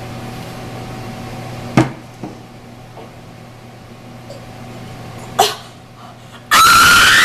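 A woman makes two short, sharp gagging sounds, about two seconds in and again about five and a half seconds in. Near the end she lets out a loud, high scream that rises in pitch and then holds.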